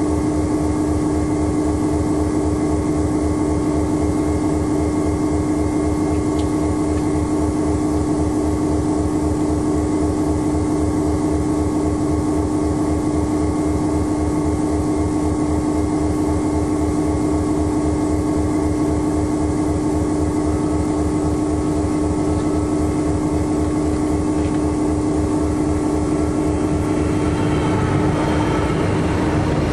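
A G class diesel-electric locomotive's EMD two-stroke V16 engine idling while the locomotive stands still, heard from inside its cab as a steady drone with a constant hum and a fast even low pulse. Near the end a freight train passes alongside on the next track, adding a rising rumble and rattle of locomotive and wagons going by.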